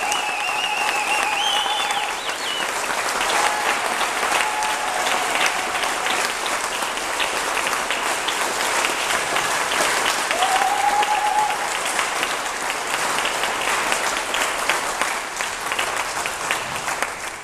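Audience applauding steadily, with a few cheers rising above the clapping near the start and again about ten seconds in.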